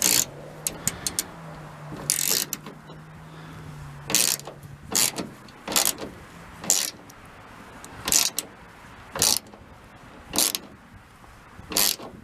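Hand ratchet wrench driving in a speedometer mounting bolt on a split-window VW bus: short bursts of ratchet clicking, roughly one a second.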